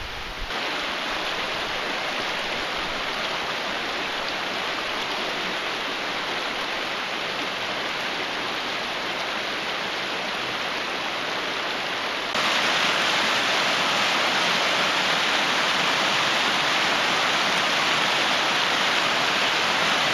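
Shallow rocky river rushing over stones and riffles, a steady wash of water that becomes abruptly louder about twelve seconds in.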